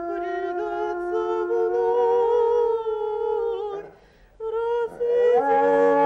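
A dog howling along to music in long, drawn-out, sung-like tones. The howl breaks off briefly about four seconds in, then resumes on a lower held note.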